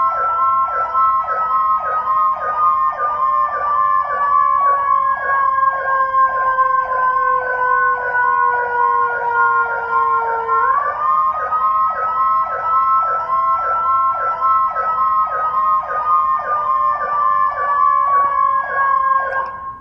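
Whelen Carbide electronic siren sounding two tones at once through its dual tone amplifier: a rapid warbling yelp over a slow wail that falls steadily and swoops back up about halfway through.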